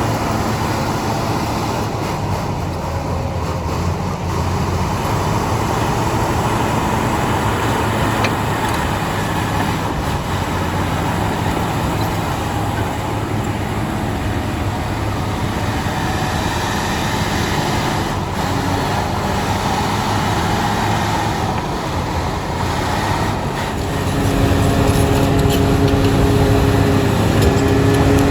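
Bulldozer's diesel engine running steadily under load. Near the end it gets louder, with a steady whine on top.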